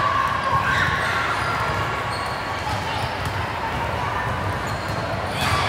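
Gymnasium court sounds during a volleyball rally: balls thudding on the hardwood floor and sneakers squeaking, over a murmur of voices in the hall.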